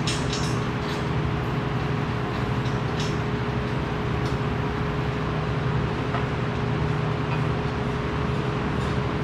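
Steady mechanical hum of running machinery, even in level, with a few sharp metallic clicks in the first half second and again about three and four seconds in.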